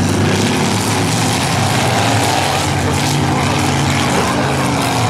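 Demolition derby cars' engines running and revving in the arena, a loud, steady engine din.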